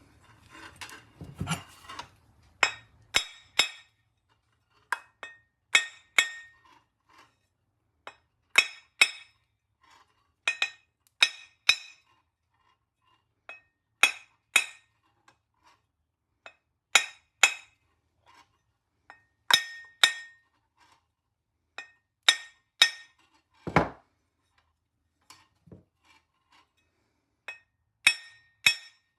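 Hammer tapping on a stuck clover propeller of a British Seagull Silver Century outboard to drive it off its shaft: light, sharp metallic clinks, often two in quick succession, with a short ringing tone, repeated every second or two. One heavier knock comes near the end.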